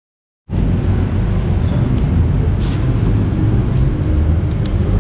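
Silence for about half a second, then a loud, steady low rumble of background noise with a few faint clicks.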